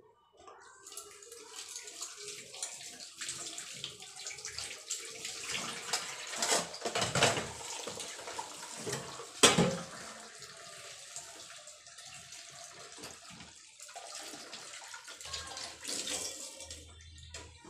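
Water running from a tap into a steel kitchen sink while steel dishes are rinsed, with a few sharp clanks of the metal utensils, the loudest about nine and a half seconds in.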